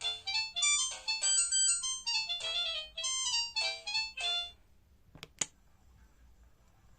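Alcatel OT-385JA mobile phone playing a ringtone: a quick melody of short synthesized notes that stops about four and a half seconds in. Two sharp clicks follow a moment later.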